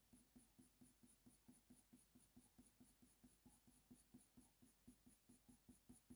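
Faint scratching of a Faber-Castell Polychromos coloured pencil on hot-press watercolour paper, laid down in quick, short, even strokes, about five or six a second, as fur is hatched in.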